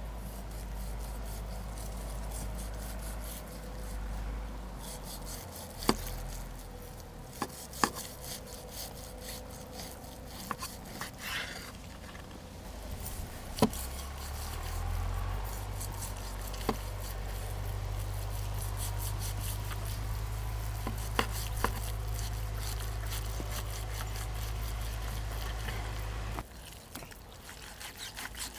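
Scattered sharp knocks and clicks with stretches of rubbing or scraping, over a steady low hum.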